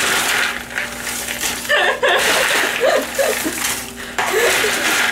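Dry snack mix of caramel popcorn, pretzels, cereal and candy rattling and crunching as it is stirred with a wooden spoon in a big bowl. A woman chuckles briefly in the middle.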